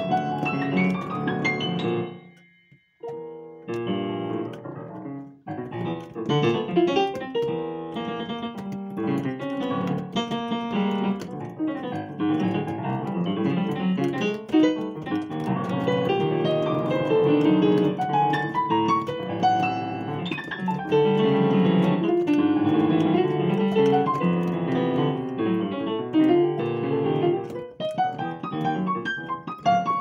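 Digital piano played with both hands in a fast, dense run of notes and chords, broken by a brief pause about three seconds in, after which a few single notes lead back into full playing.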